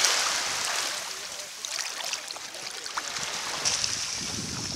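Small waves lapping and washing over sand at the water's edge, a steady hiss that swells near the start and again near the end.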